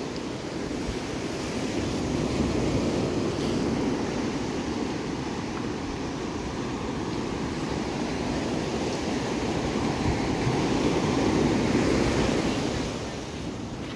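Ocean surf breaking and washing up the beach, a steady rush that swells twice and eases near the end, with some wind on the microphone.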